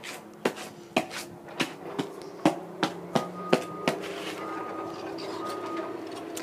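Shoes stomped and knocked on a concrete patio to shake off mud: about ten sharp knocks, roughly two a second. The knocking stops a little past halfway, leaving a steady low background.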